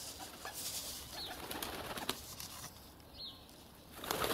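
Pigeons around a feeding spot, with two short, high, falling chirps from a small bird about two seconds apart and a louder rustling burst near the end.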